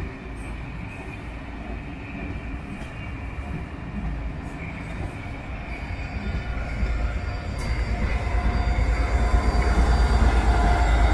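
Cream-and-maroon Pullman-style railtour coaches rolling past, with steady wheel-on-rail noise and a faint high wheel squeal. From about eight seconds in, a louder low rumble builds as the diesel locomotive at the rear of the train draws near.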